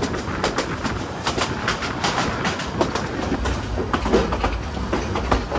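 Passenger train running on the line: its coach wheels clack over the rail joints amid a steady running rumble. The low rumble grows heavier about two-thirds of the way through.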